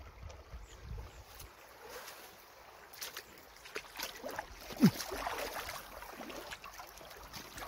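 Shallow stream water trickling over stones, with a few light knocks and, about five seconds in, one short falling tone that is the loudest sound.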